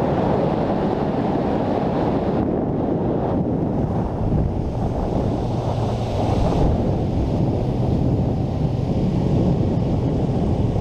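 Wind buffeting the microphone on a moving boat: a loud, steady rush with water noise and no letup.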